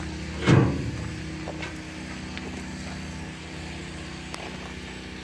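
John Deere 790 compact tractor's diesel engine idling steadily, with one brief louder sound about half a second in and a few light clicks.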